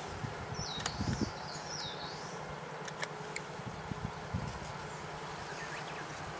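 Outdoor ambience with a steady low hum and a bird's warbling whistle from about half a second to two and a half seconds in, with a few faint clicks.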